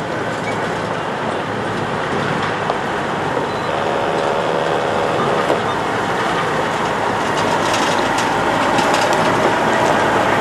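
Diesel semi truck pulling an empty flatbed trailer, driving slowly over gravel ballast toward the listener: engine running, tyres crunching, louder as it comes closer. Light knocks and rattles near the end.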